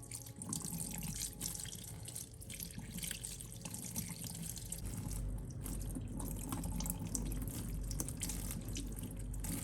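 Tap water running steadily into a kitchen sink.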